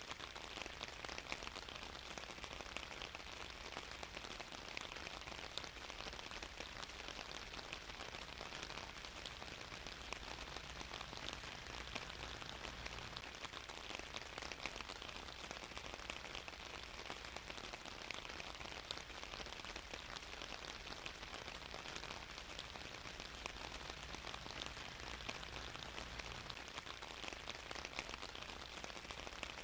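Steady rainfall, with dense small drop ticks over an even hiss.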